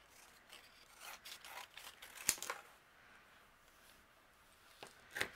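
Faint handling of a thin strip of cardstock on a craft mat: light paper rustles and scrapes, with a sharp click a little past two seconds and a couple more clicks near the end.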